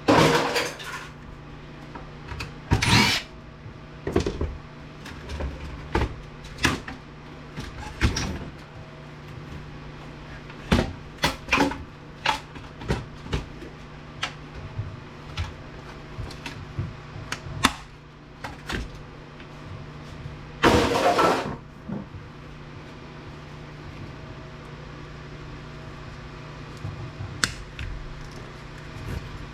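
Clatter of tools and metal parts being handled while an APC battery backup unit is taken apart: many separate knocks and clicks, with three louder rasping bursts of about a second each near the start, about three seconds in, and about twenty seconds in. A steady low hum runs underneath.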